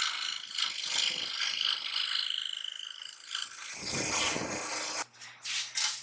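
Homemade metal-framed scroll saw running, its reciprocating blade cutting through a wooden board with a fast mechanical rattle. About five seconds in the sawing cuts off abruptly, giving way to a steady low hum and a few short, sharp sounds.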